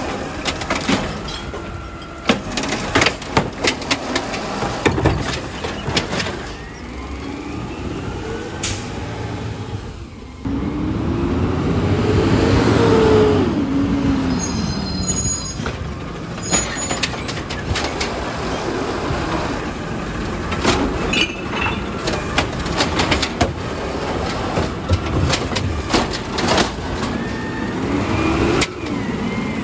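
Garbage truck working a recycling pickup: the engine revs up and falls back for a few seconds in the middle while the lifting hydraulics run, with repeated clanks and knocks from the lift and bin and hisses of air from the brakes.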